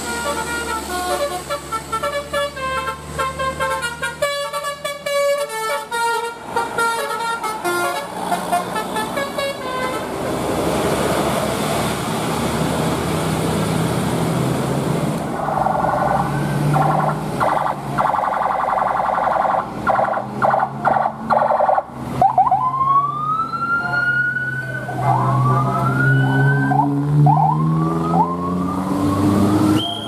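A tune of short stepped notes for about the first ten seconds, then road noise of vehicles climbing the bend. From about halfway, a multi-tone telolet air horn sounds held chords, followed by repeated rising, siren-like whoops.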